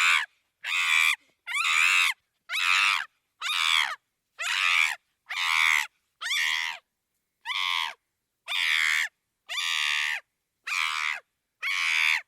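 Chimpanzee screaming: a string of about a dozen shrill, pitch-sliding screams, roughly one a second, each under a second long and separated by short silent gaps.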